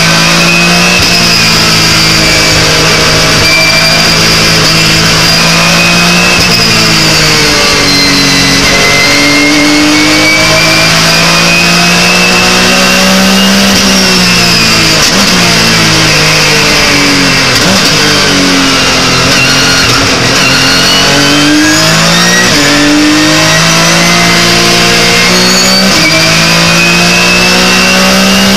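Porsche 911 GT3 Cup race car's flat-six engine heard from inside the cockpit at racing speed, its pitch climbing under acceleration and dropping sharply at each gear change, with a slower fall and rise through a corner midway.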